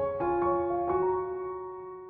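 Background music: soft piano playing a slow melody, a few notes in the first second, then a chord held and fading.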